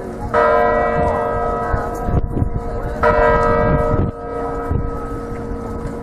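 A large tower bell struck twice, about two and a half seconds apart, each stroke ringing on with a rich set of overtones.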